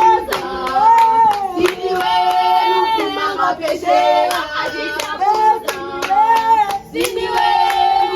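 A group of voices singing together in long held notes, with rhythmic hand-clapping keeping the beat.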